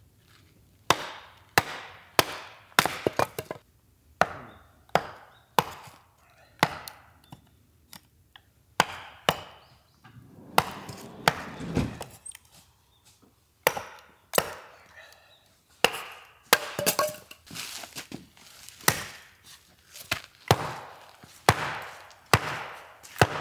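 Firewood being split: a long run of sharp chopping blows of a blade into wood, about one every half second to a second, coming in small groups with short pauses. The log is hard and won't split.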